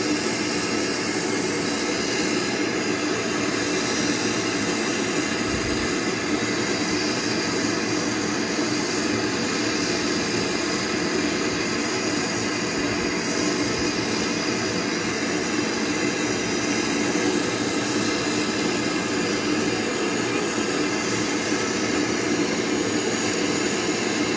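MAP-gas torch burning with a steady, even rush, opened up high to heat a steel-to-copper compressor tube joint for brazing.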